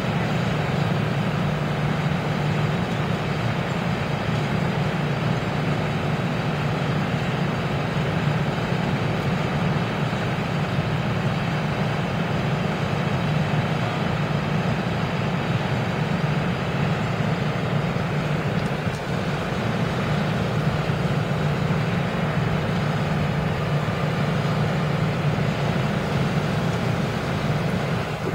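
A vehicle engine running steadily, a constant low drone with no change in speed.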